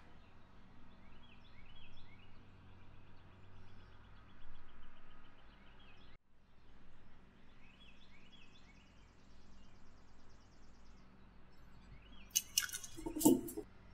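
Songbirds singing outdoors: short rising chirps repeated in quick runs and a high trill, over faint background noise. Near the end come a few sharp clicks and one short, loud sound.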